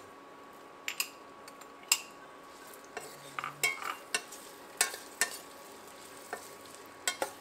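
Metal spoon stirring chopped amla pieces in a stainless steel pan, with irregular sharp clinks and scrapes of metal on metal over a low sizzle of frying in mustard oil.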